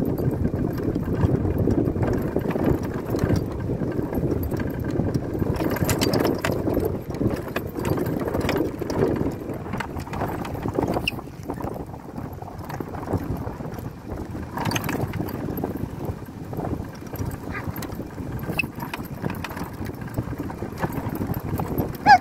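Wind buffeting the microphone: a rough, low rumble, stronger in the first half, with scattered light knocks and clicks. A short, sharp, pitched sound comes right at the end.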